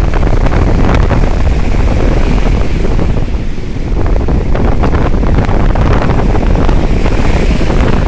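Rough surf breaking and foam washing up a sandy beach, with strong wind buffeting the microphone.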